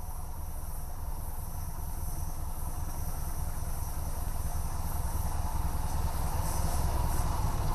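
Diesel locomotive engine droning from down the line as the train approaches, a low rumble growing slowly louder.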